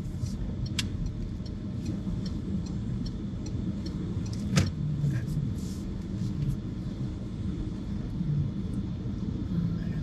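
Car driving, heard from inside the cabin: a steady low rumble of engine and road noise, with a sharp click about four and a half seconds in.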